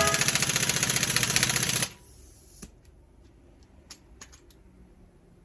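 Pneumatic impact wrench hammering at a wheel nut in a fast, even rattle, stopping abruptly about two seconds in. A few faint clicks follow.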